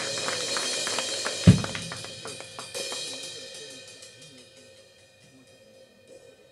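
Acoustic drum kit with a Gretsch bass drum played solo: a heavy accent on the drums and cymbals about a second and a half in, quick strokes, then the cymbals ring out and fade away, leaving it almost quiet near the end.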